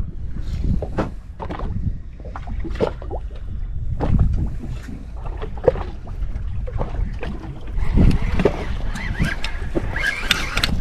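Water lapping and slapping against the hull of a drifting fibreglass boat, with wind buffeting the microphone. In the last few seconds a jigging line is wound in and the jig breaks the surface, and the splashing gets busier.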